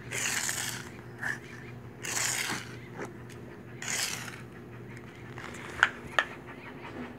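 A dog scuffling in dirt: three short scraping rushes about two seconds apart, then two sharp clicks near the end, over a steady low hum.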